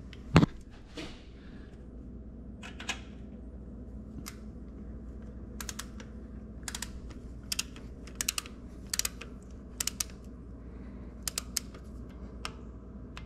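Small torque wrench ratcheting in short strokes, giving sharp clicks in twos and threes, as a nut on a starter solenoid stud is run down to 55 inch-pounds. One sharp knock sounds just after the start.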